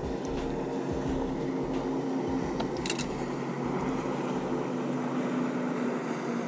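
A fishing boat's motor running with a steady hum, with wind rumbling on and off against the microphone.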